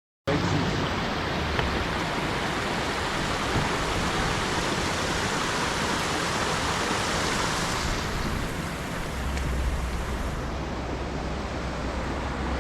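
Steady rushing noise with no tone or rhythm in it. The hiss thins about eight seconds in, and a low rumble joins about a second later.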